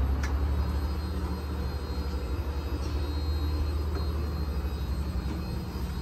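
Steady low hum and rumble of a boat's inverter air-conditioning system running.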